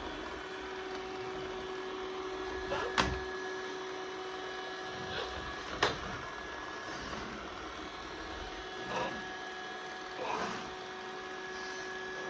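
Yeedi robot vacuum running with a steady, even motor whine. Two sharp knocks come about 3 and 6 seconds in, with softer brief rustles later.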